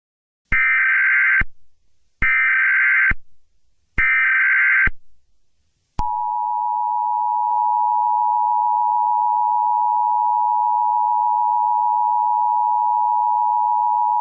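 Emergency Alert System signal: three short bursts of SAME digital header tones, then the two-tone attention signal held steady for about eight seconds. It heralds an Emergency Action Termination message.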